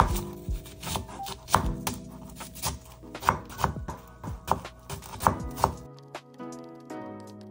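Chef's knife dicing an onion on a wooden cutting board: a quick, irregular series of blade knocks against the wood, stopping about six seconds in.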